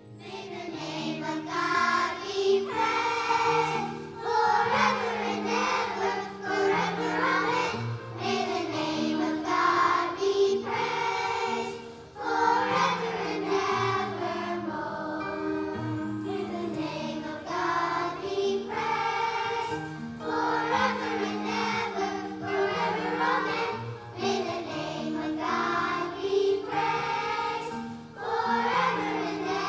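A children's choir of first- and second-graders singing a hymn together in unison, with held accompaniment notes underneath.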